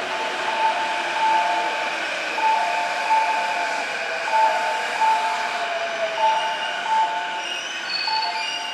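An electronic chime repeating a higher and a lower note over and over. Under it runs the steady noise of a train on the tracks.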